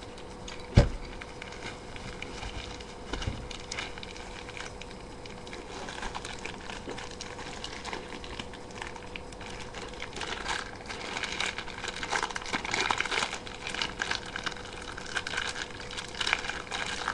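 Kitchen handling noises while preparing food: a sharp knock about a second in, then light clicks and rustles that grow busier through the second half, over a faint steady hum.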